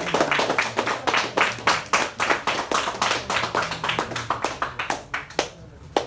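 A few people clapping in welcome, fast and dense, thinning out about five seconds in with one last clap near the end.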